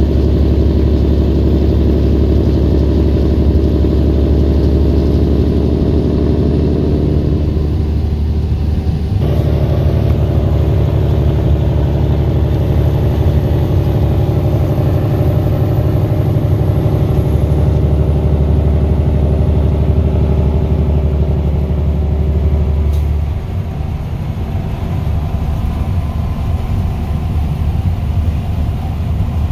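A 2011 Peterbilt semi truck's diesel engine running steadily while hauling a load, heard from inside the cab. Its note changes about eight seconds in, and it eases off and gets a little quieter about 23 seconds in.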